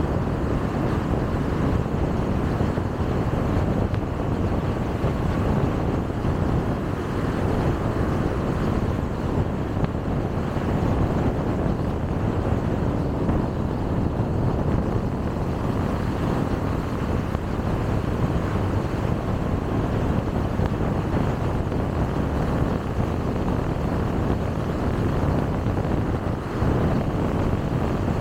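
Steady road noise of a car driving at speed on a highway: an even rumble of tyres and engine that does not change.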